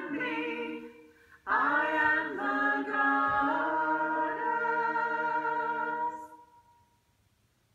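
Voices singing a chant a cappella in harmony: a sung line closes about a second in, then after a short break the voices hold one long chord for several seconds before it dies away to near silence.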